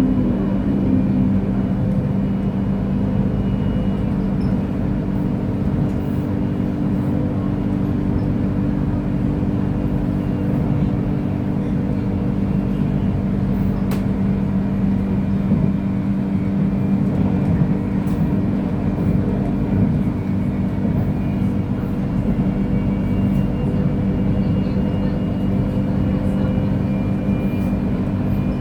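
KTM Komuter electric multiple unit running on the line: a steady hum from motors and running gear. Several constant tones sit over the hum, low and a faint high whine, with one faint click about halfway through.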